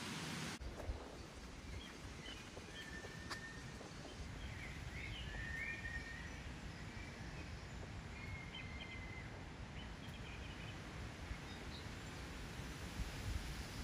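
Faint songbird calls, a few short chirps and whistles, over a quiet low outdoor background. A rushing hiss cuts off about half a second in.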